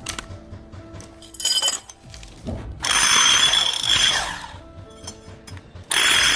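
Electric impact drill running in bursts with its hammer action engaged, a short burst and then two longer runs of a second or more, over background music. The drill is being tested for hammer impact after being repaired from a no-power fault.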